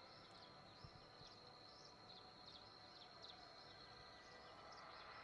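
Faint, short high chirps repeating about twice a second, over a steady high whine and a low hiss.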